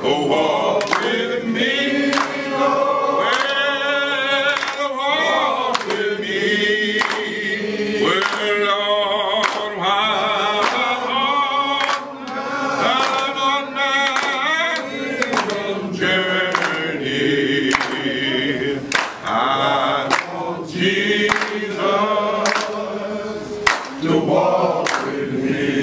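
A group of voices singing a gospel spiritual a cappella, with handclaps keeping time about once a second.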